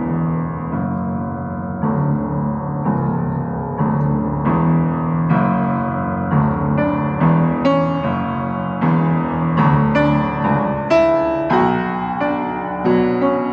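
Solo piano improvisation: notes and chords struck about every half second over sustained low notes, with brighter high notes joining in the second half.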